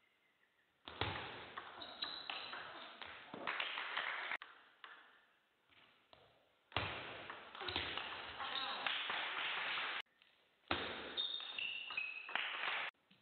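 Table tennis ball clicking off bats and table during play, with bursts of shouting and cheering voices between and after points.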